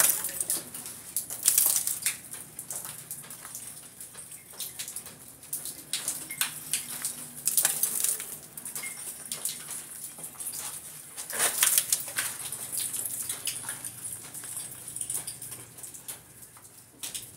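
Broken plaster and masonry being scraped and picked out of a hole in a thick wall by hand, crumbling and trickling in an irregular scratchy crackle, with louder scrapes about a second and a half in, around eight seconds and around twelve seconds.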